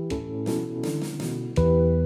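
Background music: a run of plucked guitar notes, each dying away, then a louder, fuller chord with bass coming in about one and a half seconds in.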